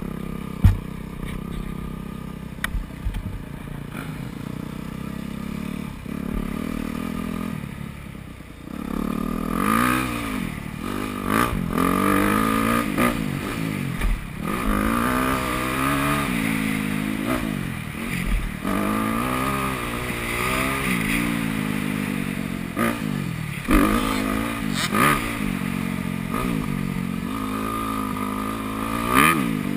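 2009 Yamaha YZ250F single-cylinder four-stroke motocross engine. It runs at low revs for the first eight seconds or so, then revs up and backs off again and again as the bike is ridden round the track. A few sharp knocks come through, the loudest just under a second in and twice around the 24–25 second mark.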